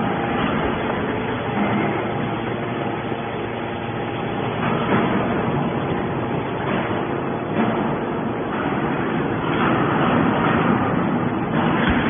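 Hydraulic scrap metal baler running: a continuous, loud hum from its hydraulic pump and motor, with mechanical noise throughout, as a compressed bale of metal turnings is pushed out of the press chamber.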